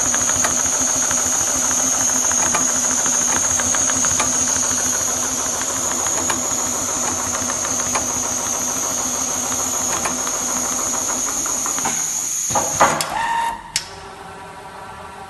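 Richpeace computerized leather sewing machine running, its needle stitching rapidly over a steady high whine. Near the end it stops with a few sharp clicks and a brief tone, leaving a quieter hum.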